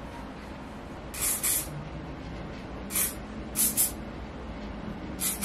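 Aerosol hair-styling spray can sprayed into the hair in several short hissing bursts, some in quick pairs.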